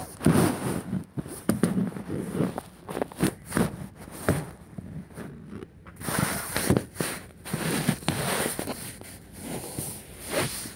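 Irregular crackling, rubbing and knocking of a phone microphone being handled and moved about.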